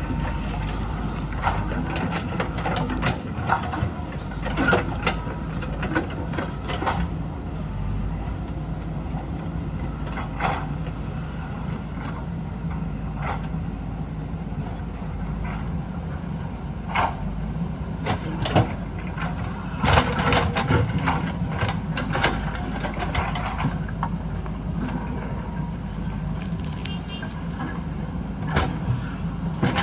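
Diesel earthmoving machinery running steadily, with scattered clanks and knocks from the digging and hill-cutting work, several of them close together past the middle.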